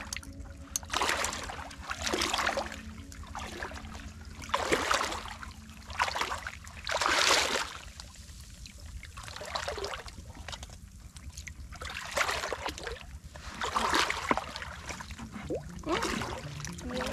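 Shallow muddy water sloshing and splashing as a person wades through it, in repeated swells every second or two.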